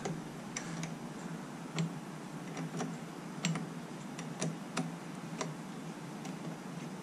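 Small metal clicks, irregular and spaced up to a second or so apart, as a hand tool works the positive battery terminal clamp loose, over a faint steady low hum.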